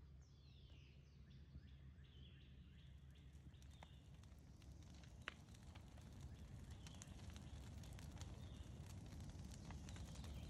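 Faint outdoor ambience: birds chirping, with a quick descending run of chirps in the first second, over a steady low rumble and scattered soft crackles that grow more frequent toward the end.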